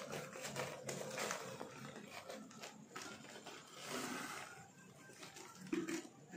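Soil being scooped by hand from a plastic bag into a plastic bottle, with the bag rustling and crinkling and soil scraping in irregular bursts. The sounds are busier at first and thin out over the last couple of seconds.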